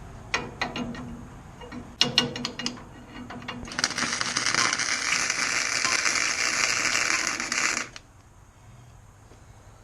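A few metallic clicks and clatter, then a Harbor Freight welder's arc hissing and crackling steadily for about four seconds before cutting off suddenly: a weld being laid to tack the hitch steel together.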